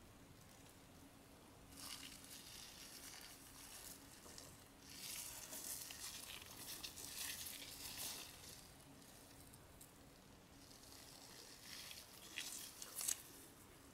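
Faint rustling of nitrile-gloved hands handling and turning a metal replica revolver, with a few small sharp handling clicks near the end, over a faint steady hum.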